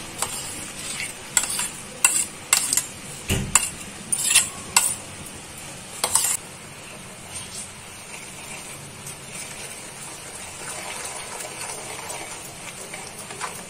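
Sugar syrup and grated fresh coconut bubbling and sizzling steadily in a kadhai on a low flame. A run of about ten sharp knocks and clacks comes in the first six seconds, and near the end a wooden spatula stirs the mixture.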